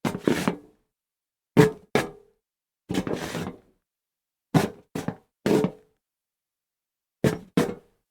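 Feet shuffling and stepping on a metal plank: irregular single and paired footfalls, each with a short metallic ring, and a longer scuffing scrape about three seconds in.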